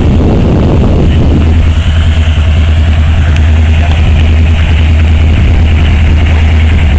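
Union Pacific diesel locomotive pushing at the rear of a container train as it passes over a steel bridge: a loud, steady low engine rumble, with a higher hiss joining in about a second and a half in.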